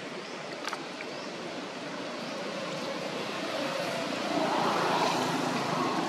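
Steady outdoor background rush that swells and grows louder about four seconds in, with a single faint click just under a second in.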